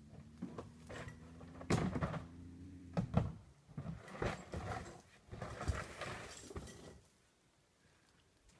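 Bobcat caught in a wolf trap growling, a low steady growl for about the first three seconds, followed by several short harsher noisy bursts and rustling.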